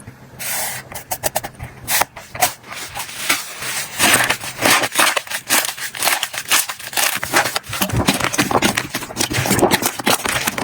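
Slime being squished and pressed by hands: a dense, irregular run of small sticky clicks and crackles, with a brief pause right at the start.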